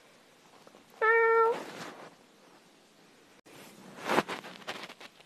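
A cat's meow about a second in: one short call held at a steady pitch for about half a second. Later a brief sharp noise stands out among fainter rustling.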